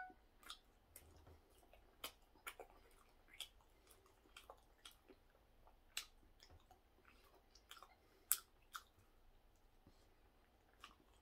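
Faint mouth sounds of someone chewing a soft steamed bun: irregular wet smacks and clicks.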